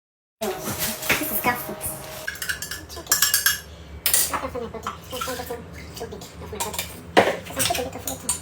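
Kitchen clatter: metal utensils and cookware knocking and scraping, with many sharp irregular clinks.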